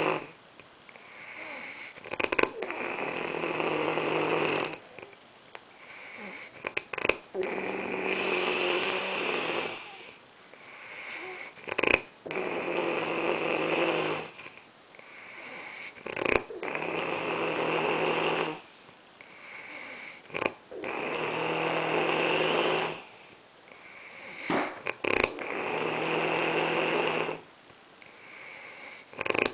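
A person snoring loudly in a steady rhythm: a long snore about every four and a half seconds, with a softer breath and a short sharp snort between each.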